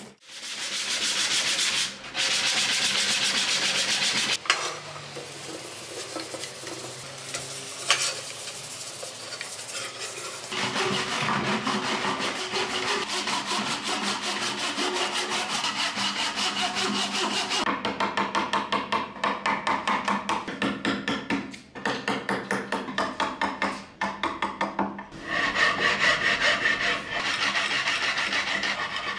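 Hand woodworking on pine: a rasp scraping across a wooden board, then a handsaw cutting through a wooden dowel in quick back-and-forth strokes. Near the end comes a louder, steadier stretch of tool noise.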